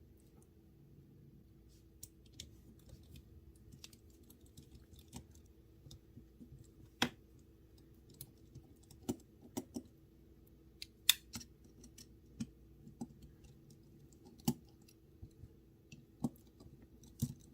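Scattered small clicks and taps of metal knife parts and small tools being handled on a work surface, a few sharper knocks among them, over a faint steady hum.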